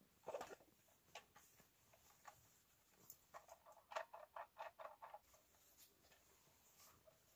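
Faint clicks, taps and rustles of camping gear being handled: a small pot and a thermos flask. A short rustle comes just after the start, and a quick run of small taps, about four a second, comes midway.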